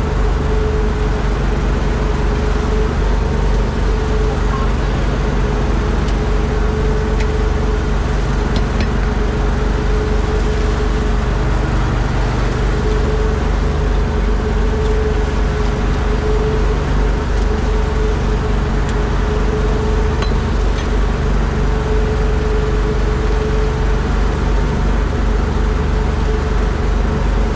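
Boat engine running steadily at an even speed: a loud constant drone with a steady hum.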